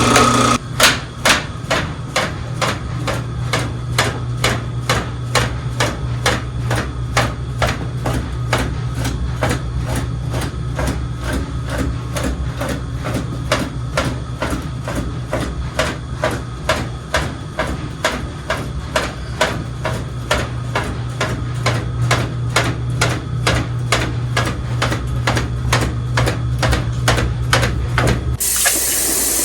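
Drain-cleaning snake machine running with a steady hum and a regular knocking of a little over two knocks a second as it works the cable through a clogged kitchen drain. About a second before the end it stops and running water hisses in its place.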